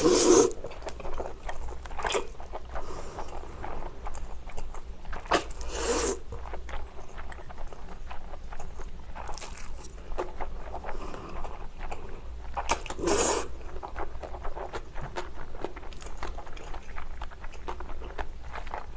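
Close-miked eating of spicy cold naengmyeon noodles: three loud slurps, near the start, about six seconds in and about thirteen seconds in, with wet chewing and mouth smacks in between.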